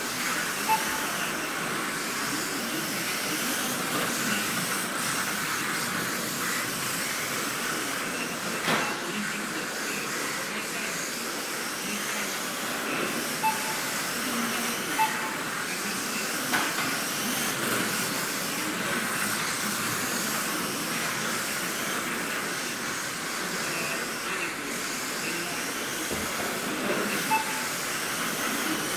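Kyosho Mini-Z RC cars lapping a small indoor track: a steady whirr of small electric motors and tyres, with a few sharp clicks as cars hit the barriers. Short beeps sound a few times.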